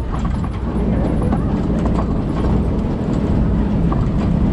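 Open-sided safari truck driving over an uneven dirt track: a steady low engine and road rumble with scattered small knocks and rattles from the vehicle body.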